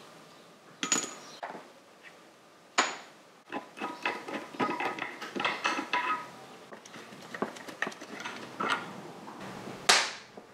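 Loose metal washers and bolts from a motorcycle fork yoke clinking and clattering as they are prised off and handled. A quick run of ringing clinks in the middle, and a sharp metal clack near the end as a part is put down.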